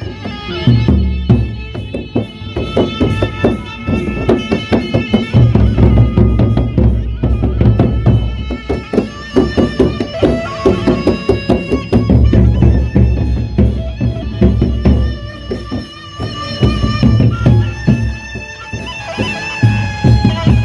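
Sasak gendang beleq ensemble playing: large barrel drums beaten in fast, dense strokes with hand cymbals clashing, and a high held melody line above. Deep booming passages swell and fade every few seconds.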